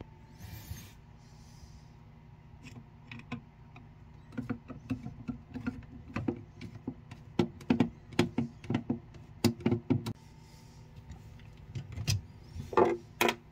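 Flathead screwdriver working the mounting screws out of a Jabsco electric toilet's macerator motor, with many small irregular clicks and scrapes of metal on screw and plastic housing. A couple of louder knocks near the end as the tool is set down and the motor is handled.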